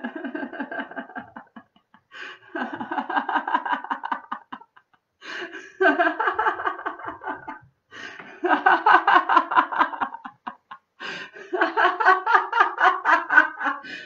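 A woman laughing aloud with her mouth open in quick ha-ha pulses: deliberate laughter-yoga laughter. It comes in five runs with short pauses between them, getting louder toward the end.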